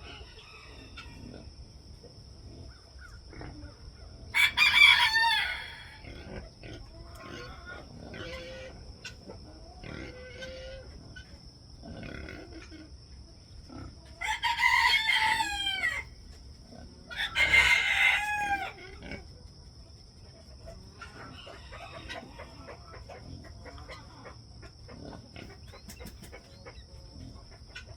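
Rooster crowing three times, loud and drawn out, about four seconds in and twice more in quick succession past the middle, with softer chicken clucks in between.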